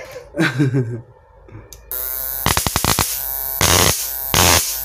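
A homemade two-MOSFET PWM high-voltage shocker circuit, driving a small half-wave transformer, starts a loud buzzing hum about two seconds in as its output is shorted to draw a spark. A rapid crackle follows, then louder bursts of arcing as the spark is drawn.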